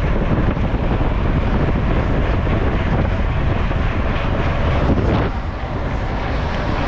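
Wind buffeting the microphone over the rumble and rattle of a mountain bike riding a rough downhill trail.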